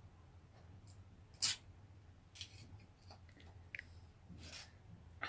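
Metal knife blade scraping and scratching at a coin glued to a concrete floor in several short strokes, the loudest about a second and a half in, as it tries to pry the coin up.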